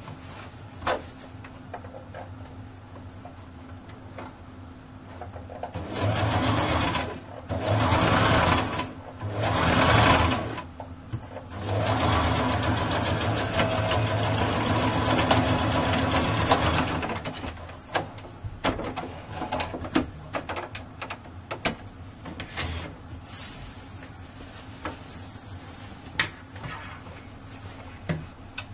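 Brother electric sewing machine stitching in a zipper, in three short runs and then one longer run of about five seconds. Before and after, light clicks and taps of the fabric being handled.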